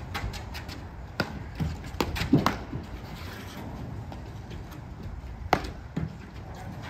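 Platform tennis paddles striking the ball and the ball bouncing on the court during a rally: a series of sharp knocks, a quick cluster about two seconds in, then two more about five and a half and six seconds in.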